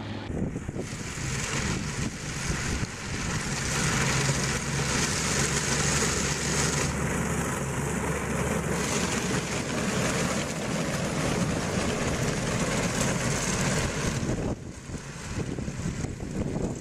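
A vehicle engine running steadily under a loud rushing hiss; both drop away abruptly about three-quarters of the way through, then come back quieter.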